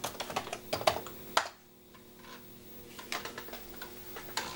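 Keystrokes on a Commodore computer's keyboard as the disk directory command is typed: a quick run of key clicks in the first second and a half, then a few more toward the end. Under them runs a faint steady hum from the Commodore 1571 drive's spindle motor, which keeps spinning because of the fault being repaired.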